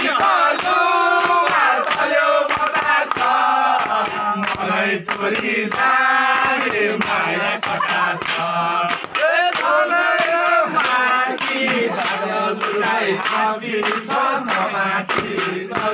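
A group of men singing a traditional Nepali folk song together in chorus, with hand clapping on the beat.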